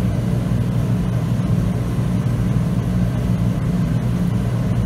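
Shop heater running with a steady low hum.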